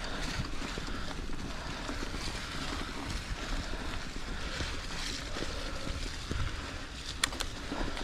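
Mountain bike rolling along a gravel forest track: a steady rush of tyre noise on gravel and wind on the microphone, with light rattles and a couple of sharp clicks near the end.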